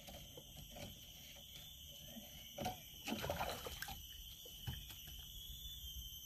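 Water sloshing and splashing in short irregular bouts, loudest about three seconds in, over a steady high-pitched chorus of insects.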